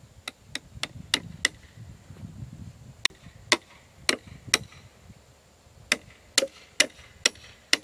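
Hammer blows on the wooden brace of a fence corner post: about fourteen sharp strikes in three quick runs, with short pauses between them.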